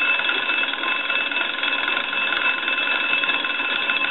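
Western Electric wooden wall crank telephone's original twin bells ringing in a steady, rapid ring as its hand-cranked magneto is turned: a test that the magneto still rings the bells.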